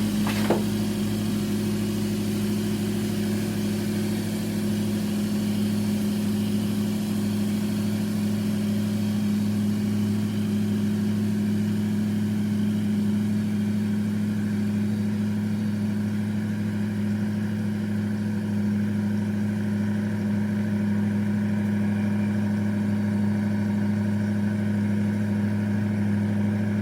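2017 Kia Forte's engine running at a constant speed, a steady low hum that never rises or falls in pitch.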